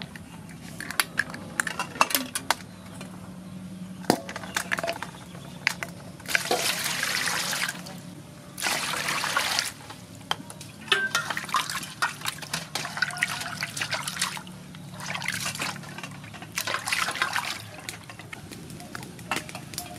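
Water rushing into an aluminium basin in two long pours, then sea snails sloshed and rinsed in it, with knocks and clinks of the shells against the metal basin.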